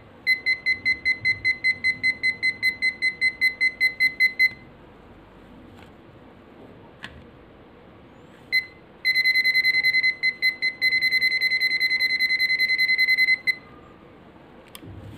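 Buzzer of a ZOYI ZT-QB9 clamp meter beeping in its non-contact voltage (EF) mode, signalling that it senses a live conductor at the socket. It gives a run of rapid high beeps, about five a second, for some four seconds. After a pause there is a single beep, then a faster, almost continuous beeping for about four and a half seconds.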